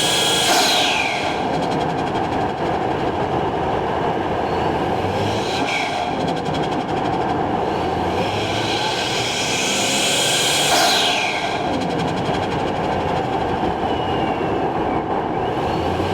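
Toyota Chaser's 1JZ-GTE turbocharged straight-six running under load. Four times, about five seconds apart, a high turbo whistle falls steeply in pitch as the throttle is lifted, the turbo flutter and blow-off.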